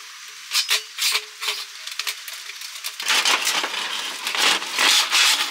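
Dented metal stovepipe being worked down over a stove's damper collar. Light metallic clicks and ringing come first, then, about three seconds in, a run of harsh metal-on-metal scraping as the tight pipe is forced on.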